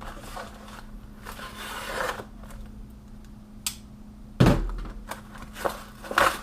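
Gear and packaging being handled on a table: rustling, a few sharp clicks, and a loud thunk about four and a half seconds in, with another knock near the end.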